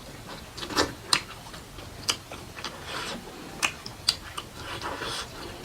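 A person eating close to the microphone: chewing with wet mouth clicks and lip smacks at irregular intervals.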